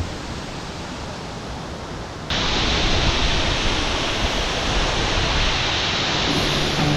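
Steady rushing water of a waterfall. About two seconds in it jumps suddenly louder and brighter.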